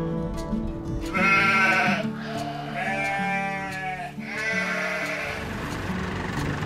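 Sheep bleating three times, each bleat about a second long, over background music.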